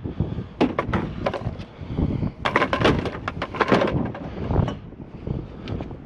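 Objects from a curbside junk pile being handled and set down: a run of sharp knocks and clatters, densest about two and a half to four seconds in, over a low wind rumble on the microphone.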